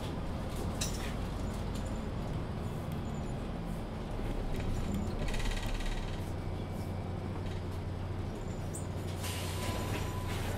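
Mercedes-Benz Citaro C2 Ü Hybrid city bus heard from inside: its diesel engine runs at a steady low hum, with creaks and a short rattle from the body about halfway through. About a second before the end comes a hiss of air.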